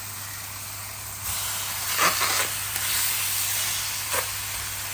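Kebab-spiced chicken thighs sizzling in a hot, dry preheated skillet with no oil, the hiss jumping louder about a second in, with a couple of short knocks.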